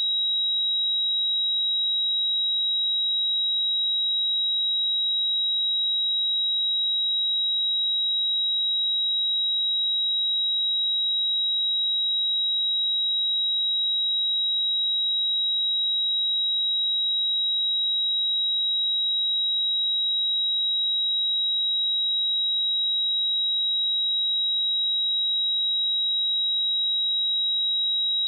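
A pure 3837 Hz sine-wave test tone, a single high-pitched steady pitch held at constant level, used for checking speakers and headphones.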